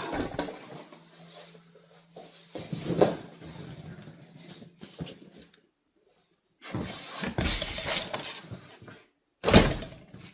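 Handling noises: bouts of scraping and rustling with a faint steady hum under the first half, and one sharp, loud knock near the end.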